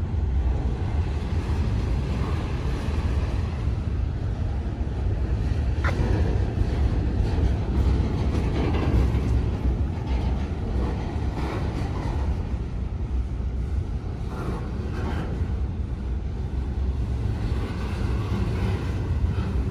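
Train rolling past: a steady, heavy rumble with scattered clicks over the rail.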